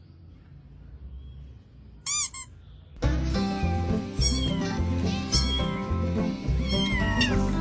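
A kitten meows once, short and high, during a quiet stretch. About three seconds in, loud background music with a steady beat starts, with a few more short, falling meows heard over it.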